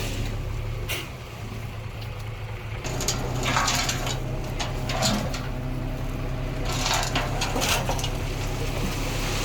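Diesel engine of heavy earthmoving machinery running steadily, with bursts of soil and rubble crunching and scraping about three seconds in and again about seven seconds in.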